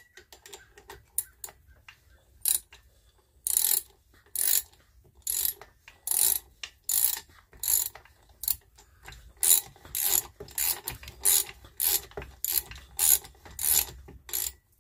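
Old lawnmower engine being turned over by hand with its cylinder head off, giving short mechanical strokes, irregular at first, then evenly repeating a bit more than once a second. The turning works penetrating oil up and down the cylinder of a piston that was seized and has just been broken loose.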